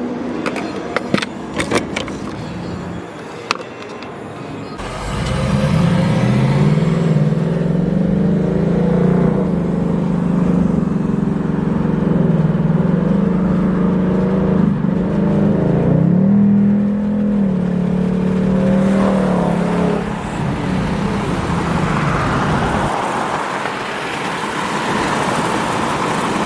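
A few sharp clicks and knocks, then about five seconds in a Ford Mustang GT's V8 engine starts running, its pitch rising quickly and then holding fairly steady, with a dip and rise partway through as the car is driven. Near the end the engine tone fades into a steady rushing noise.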